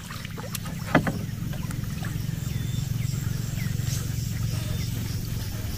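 A hooked lawang fish splashing at the water's surface beside a wooden boat, with a sharp knock about a second in. A steady low rumble runs underneath.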